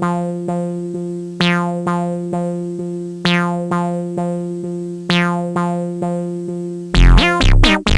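Electronic music: a synthesizer chord struck again and again in a steady pulse, then about seven seconds in a louder section with deep bass and fast sliding synth notes begins.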